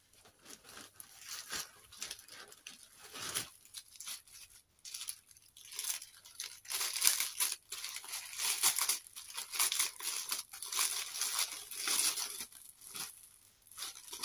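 Clear plastic packaging bag crinkling and tearing as it is pulled open and handled, in irregular rustles that grow louder and busier about halfway through.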